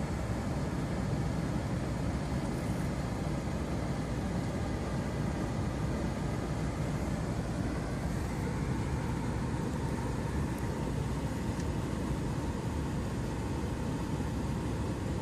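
Steady rumble and hiss of a running engine, even in level throughout.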